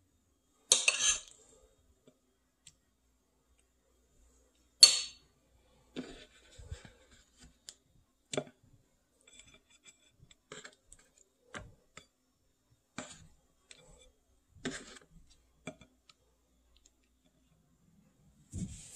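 Metal cutlery clinking, tapping and scraping against a plate as food is spooned out. A dozen or so scattered short clinks, the loudest about a second in and about five seconds in.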